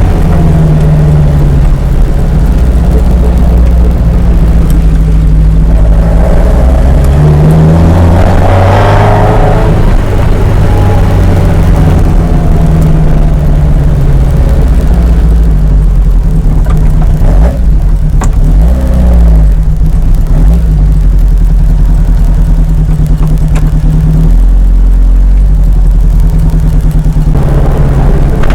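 Ginetta sports car driving, its engine running loudly under way, with the engine note dipping and climbing several times as the throttle and gears change.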